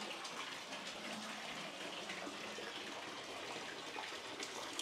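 Water running steadily, an even continuous rush.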